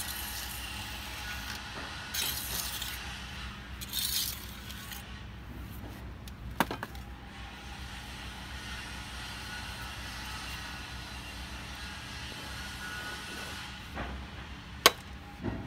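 Small metal trowels and spatulas scraping and clinking during cast stone patching, with brief scratchy scrapes in the first few seconds and a sharp click near the end, over a steady low hum.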